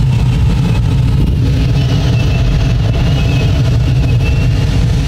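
Steady rumble of airflow around the cockpit of an ASK21 two-seat glider in free flight, with a faint wavering high tone from the audio variometer.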